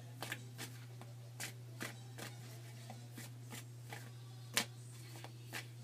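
Tarot cards being shuffled and handled: irregular soft snaps and taps of the cards, with one sharper snap about four and a half seconds in, over a steady low hum.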